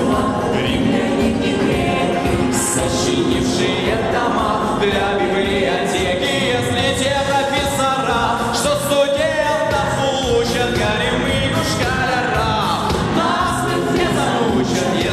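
Live pop song: a mixed group of male and female singers singing together into microphones over amplified music with a steady beat.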